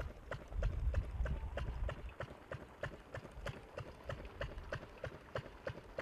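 Tractor front loader's diesel engine running with an even knocking beat of about four a second. A low rumble underneath fades about two seconds in.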